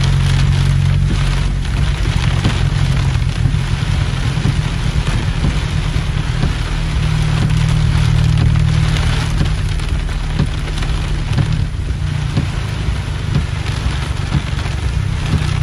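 Heavy rain pelting a car's windshield and roof, heard from inside as a dense, steady patter of countless drops, with a steady low rumble underneath.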